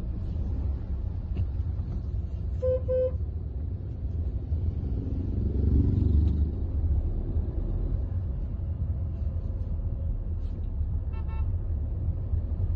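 Hyundai Verna 1.6 CRDi four-cylinder diesel on the move: a steady low road and engine rumble that swells a little midway. A car horn gives two short toots about three seconds in, and another, higher horn sounds briefly near the end.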